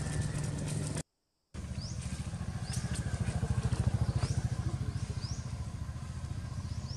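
An engine running steadily with a rapid low pulse. The sound drops out completely for about half a second a second in. Short rising chirps repeat high above it about once a second.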